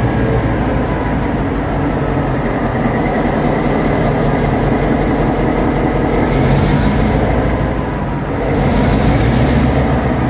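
EMD SD38-2 diesel locomotive's non-turbocharged, Roots-blown engine running under load, with a brief dip in level about eight seconds in before it picks back up.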